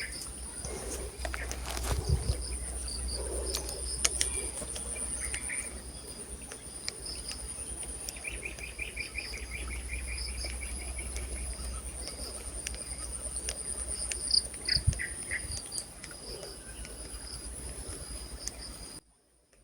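Insects singing steadily in a high-pitched drone, with a bird giving a rapid trill of repeated notes about eight seconds in and a few short chirps later. A low rumble lies underneath, and the sound cuts off suddenly just before the end.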